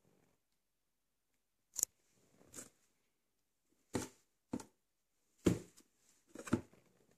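Cardboard shipping box and its packing being handled: a series of about six short knocks and crackles, with brief scrapes between them.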